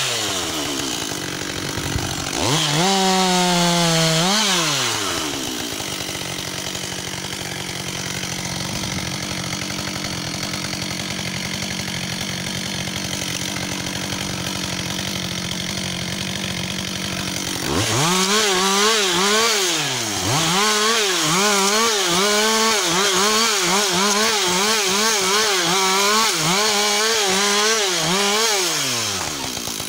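Husqvarna 562 XP two-stroke chainsaw. It is blipped briefly early on, then runs steadily at low revs for about ten seconds. Just before the last third it is opened up to full revs, its pitch bobbing up and down as the chain cuts wood, and it drops back to idle near the end.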